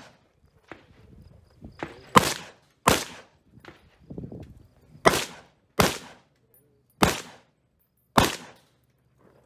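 A .308 Diamondback DB10 AR-10 rifle fires six loud, sharp shots at uneven intervals, two of them in quick pairs about a second apart, each with a short ringing tail. Fainter pops and shuffling come between the shots.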